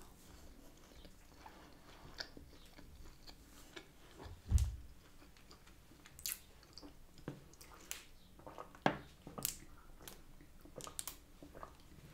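A person chewing food, faint, with scattered small clicks and a soft low thump about four and a half seconds in.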